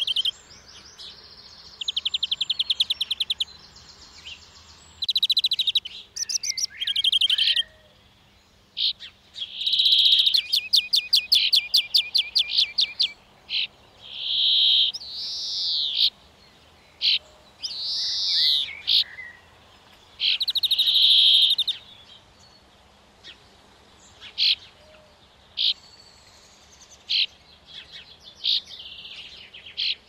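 Small songbirds singing and calling: rapid trills, notes that rise and fall, and short chirps, in loud phrases with short pauses between.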